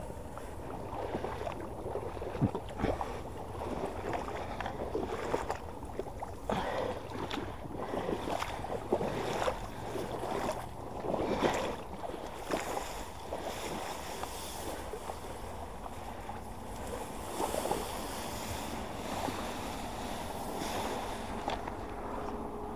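Irregular swishing and splashing of someone moving through marsh reeds and shallow water, with some wind on the microphone.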